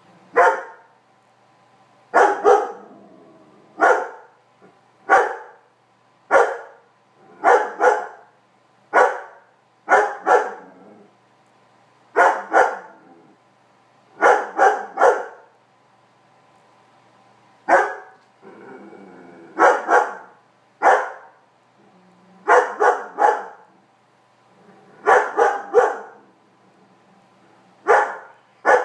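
A Weimaraner barking repeatedly at a cat on its bed: short, loud barks about one a second, some single and some in quick pairs or triples.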